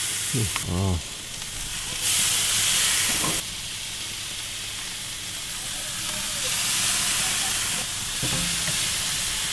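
Marinated beef steaks sizzling on a hot grill grate, a steady hiss that grows louder for about a second and a half about two seconds in.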